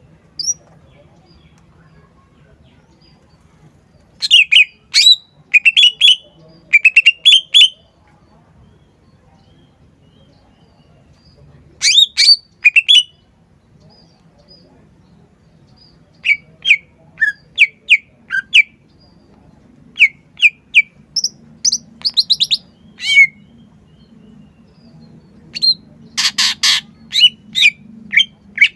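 Green leafbird (cucak ijo) singing in bursts of quick, sharp chirps and whistles, phrases of one to three seconds separated by pauses, with a louder, harsher burst near the end.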